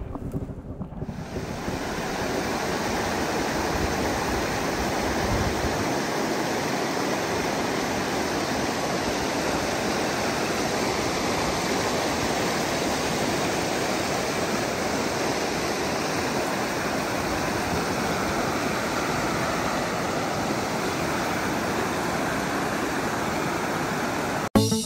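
River water rushing steadily, white water spilling over a shallow step in the riverbed.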